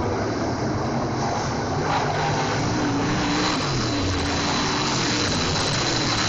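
Several dirt-track race cars' engines running hard around a dirt oval, their pitch rising and falling as they go through the turns. The sound gets fuller from about two seconds in.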